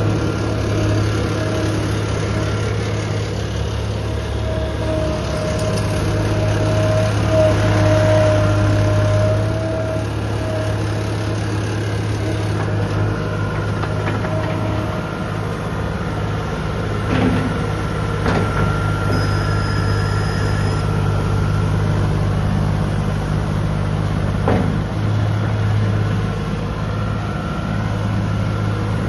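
John Deere 250 skid steer's diesel engine running steadily while the machine is operated, its pitch wavering a little, with a few short knocks in the second half.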